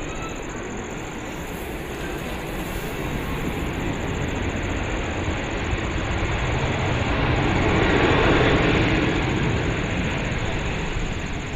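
Jet engines of a Boeing 737 airliner rolling along the runway after landing. The noise swells as the plane passes, loudest about eight seconds in, then fades.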